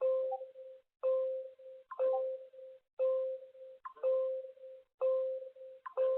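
Earthquake early-warning alarm from the warning software: a steady electronic beep repeating about once a second, each beep lasting most of the second, following on from a spoken countdown to the arrival of the shaking.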